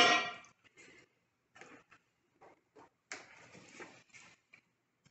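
A single loud clank of cast-iron cookware on the brick hearth, ringing briefly, then faint clicks and scrapes and a short rustle about three seconds in.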